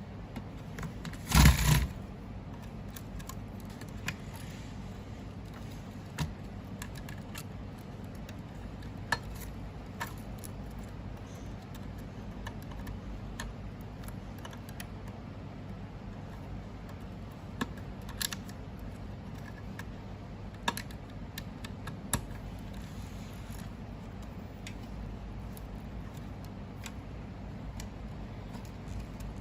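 Hands fitting cables and connectors inside a machine: scattered light clicks and taps of small plastic parts, with one brief louder clatter about a second and a half in, over a steady low hum.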